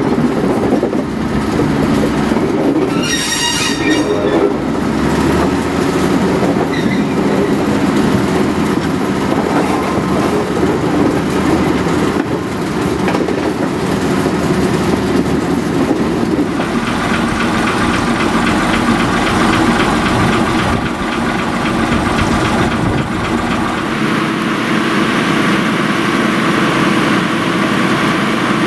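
Small diesel locomotive running along the track, its engine and wheels on the rails heard from aboard. A brief high-pitched squeal about three seconds in.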